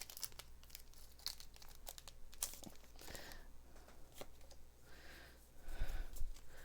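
Foil booster-pack wrapper of Pokemon trading cards being torn open and crinkled, a run of quick crackles, with a few soft thumps from handling near the end.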